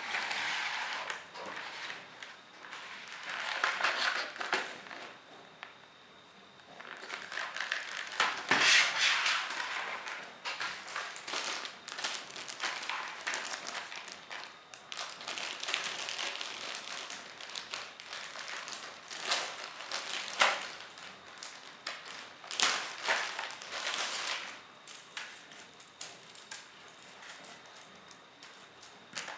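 Irregular rustling with light clicks and taps, as of objects being handled, with a pause of a couple of seconds about five seconds in.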